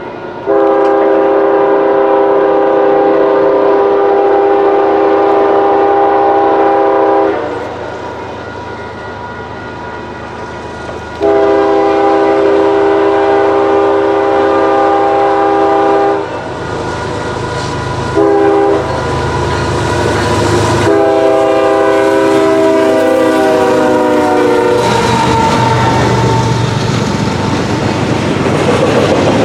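Locomotive air horn blowing a chord in the grade-crossing pattern: two long blasts, a short one, then a last long blast whose pitch drops as the locomotive passes. After the horn comes the steady rumble of the train rolling by, with wheels clacking over the rail joints.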